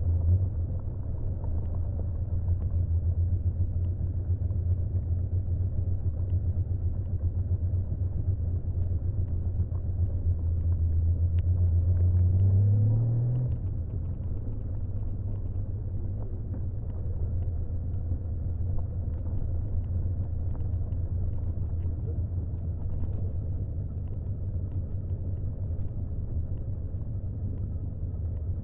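1979 Honda CBX 1000's 1047 cc inline six-cylinder engine on its stock exhaust, heard from the rider's seat while riding. The revs climb about twelve seconds in, then fall away suddenly about a second later, and the engine runs lower and steadier after that.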